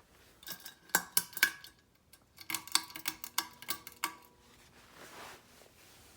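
Hard objects clinking and rattling: a run of about a dozen sharp knocks with a brief ringing tone, ending a little after four seconds in, followed by a soft rustle.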